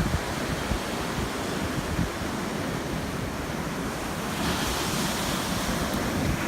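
Ocean surf washing onto a beach, with wind rumbling on the microphone; the hiss of the surf swells about four and a half seconds in.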